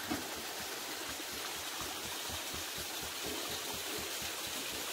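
Steady rush of a forest stream flowing over rocks.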